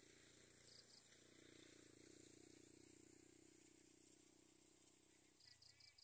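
Near silence: faint outdoor background with a low steady hum that stops near the end, and a few faint quick ticks, once early and four in a row near the end.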